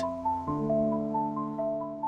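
Background music: a simple melody of held notes over a sustained chord, the chord changing about half a second in.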